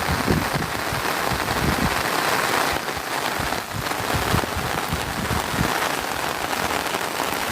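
Heavy rain falling steadily, a dense, even patter, with some low rumbling in the first two seconds.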